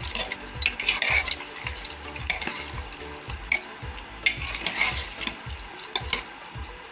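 A spoon stirring mutton and spices in a pressure cooker pot, scraping and knocking against the metal in irregular strokes.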